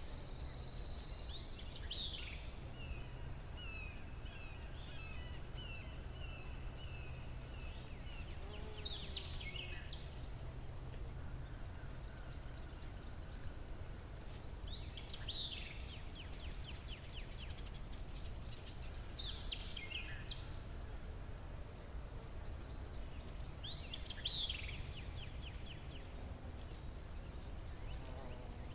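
Forest ambience: a songbird repeats a short song phrase every few seconds over a steady, high-pitched insect drone and a low rumble.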